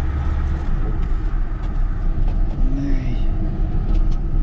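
GAZelle Next light truck driving, with a steady low engine and road rumble. There are a few light knocks, and a short rising-and-falling tone about two-thirds of the way in.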